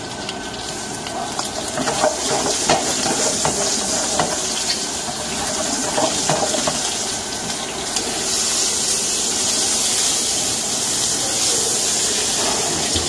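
Lamb shank sizzling in foaming butter in a frying pan as its surface is browned, with a few sharp knocks of the utensil against the pan early on. The sizzle grows louder and brighter about eight seconds in.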